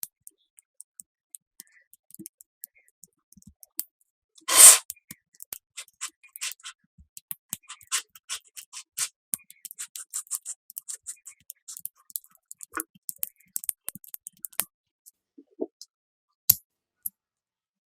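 Scattered small clicks and taps, irregular and close together through the middle, with one much louder knock about four and a half seconds in.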